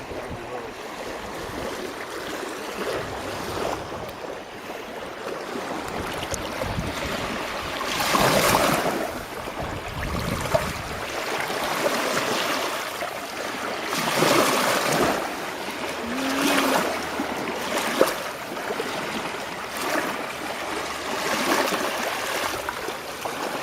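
Small lake waves washing onto a sandy beach, the wash swelling and fading every few seconds.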